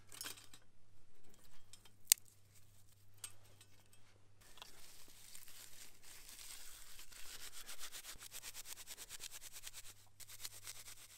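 Dry juniper twigs being fed into a small stainless-steel folding stove, one twig striking the metal with a sharp click about two seconds in. From about halfway, juniper bark is rubbed and twisted between the hands into tinder, a quick run of scratchy rasping strokes that stops shortly before the end.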